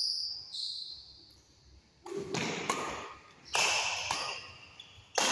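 Badminton rally: several sharp smacks of rackets striking the shuttlecock, roughly every half second to second, with short high squeaks of court shoes on the floor.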